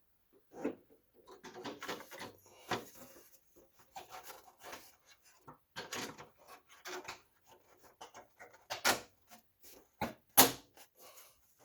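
Plastic panel and its clips being handled and pushed into place: a run of irregular clicks, knocks and rubbing, with two louder snaps near the end.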